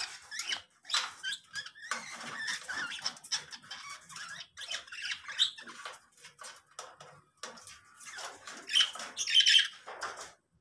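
Lovebirds chattering and squawking, a dense run of short shrill chirps, with the loudest calls about nine seconds in.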